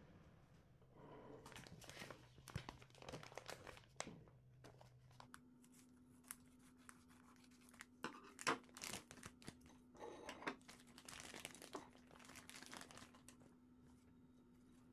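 Clear plastic vacuum-seal bag crinkling and rustling in two spells of bursts as hands handle it and open it, with a faint steady hum underneath.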